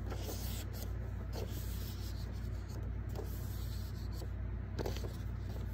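Folded gray construction paper being handled: faint rubbing and rustling of the paper under the fingers, with a few soft taps, over a steady low hum.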